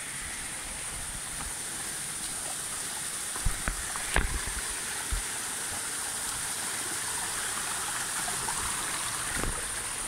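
Shallow rocky stream running steadily, with a few knocks of footsteps on stones about four seconds in.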